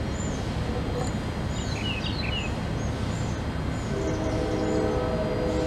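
Outdoor background of a steady low rumble of distant traffic, with small birds chirping high above it. From about four seconds in, a distant horn holds a chord of several low notes.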